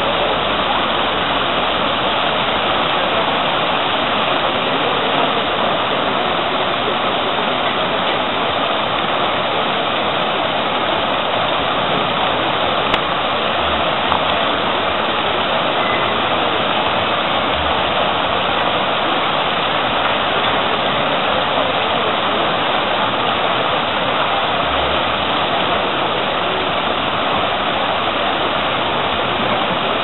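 A public fountain's ring of water jets arcing up and splashing into its pool: a steady, unbroken rush of falling water.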